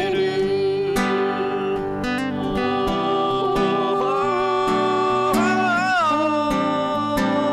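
Man singing long held notes into a microphone over acoustic guitar accompaniment.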